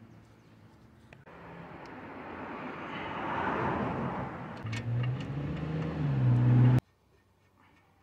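A motor vehicle driving past: a hiss of road noise builds for a few seconds, then a low engine hum comes in and rises slightly in pitch. The sound cuts off abruptly near the end.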